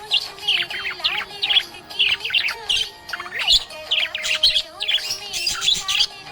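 Budgerigar chirping and warbling in a rapid, unbroken stream of short squeaky notes.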